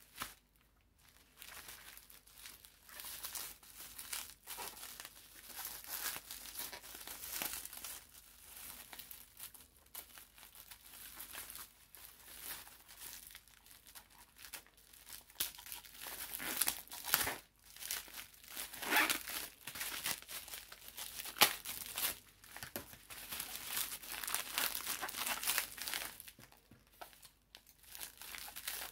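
Plastic bubble wrap crinkling and rustling as hands unwrap a silicone mold, in irregular bursts of crackle.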